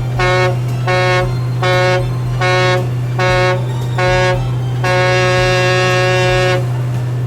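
Cruise ship horn sounding six short blasts about a second apart, then one long blast of nearly two seconds, over a steady low engine drone.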